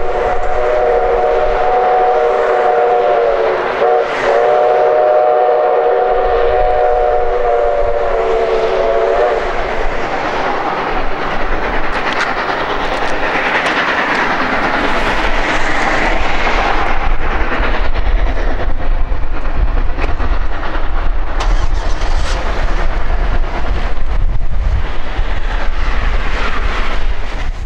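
Steam whistle of Mikado (2-8-2) steam locomotive #3254 sounding a chord of several notes in two long blasts, with a brief break about four seconds in, over the first nine seconds or so. After that the locomotive is heard working with a heavy exhaust as it pulls its train.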